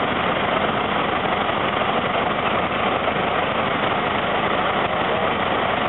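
Antique Fageol truck's engine idling steadily.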